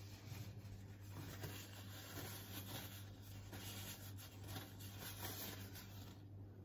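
Faint rustling and rubbing of a paper towel being handled, with small crinkles, over a steady low hum.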